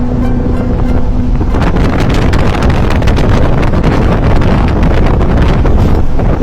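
Heavy wind buffeting the microphone over the low rumble of a moving vehicle, with frequent knocks and rattles. A steady hum at the start stops about a second and a half in.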